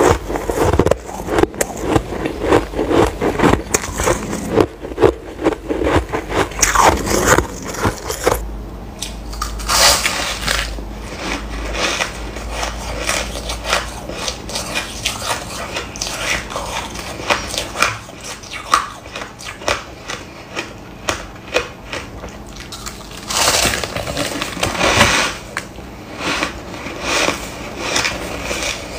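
Soft, snowy white ice being bitten and chewed close to the mouth: a dense run of crisp, crackly crunches that thins out about 8 seconds in, with a thick flurry of crunching again near the end.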